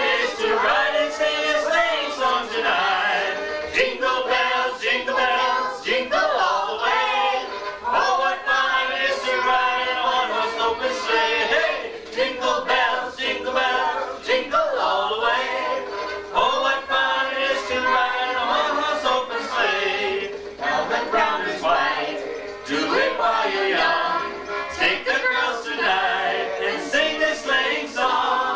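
A family group of adults and children singing a Christmas song together in chorus.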